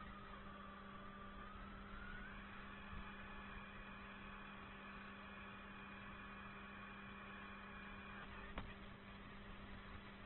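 Faint whine of a micro RC crawler's brushless motor and drivetrain, heard over a steady electrical hum. The whine rises about two seconds in and holds steady, and a single sharp click comes near the end.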